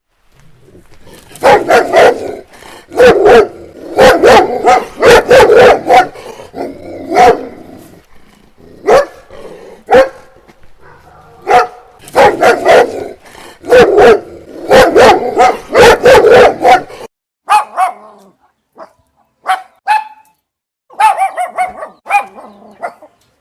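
Dogs barking in rapid runs of loud barks, then sparser, shorter barks with pauses between them near the end.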